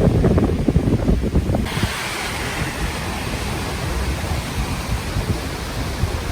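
Tropical-storm wind gusting and buffeting the microphone. Nearly two seconds in it switches abruptly to a steady, even rushing hiss of the storm.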